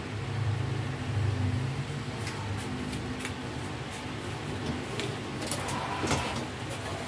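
Scattered light clicks and knocks of tools and metal casing parts being handled, over a steady low hum, with a small cluster of clicks near the end.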